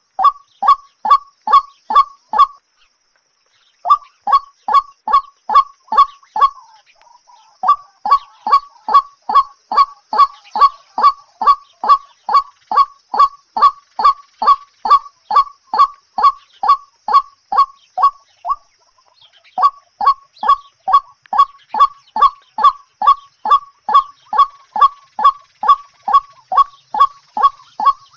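A bird calling a short, honking note over and over in a fast, very even rhythm, about three notes a second, broken by brief pauses about 3, 7 and 19 seconds in.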